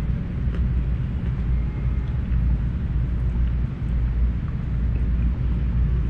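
A steady low rumble of background noise, with a few faint clicks over it.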